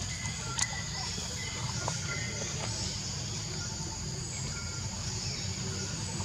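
Forest ambience: a steady high-pitched insect chorus over a low rumble, with one sharp click just over half a second in.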